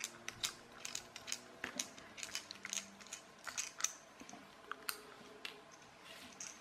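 Precision screwdriver turning small screws out of a plastic toy gearbox housing: a run of faint, irregular clicks and creaks, a few a second.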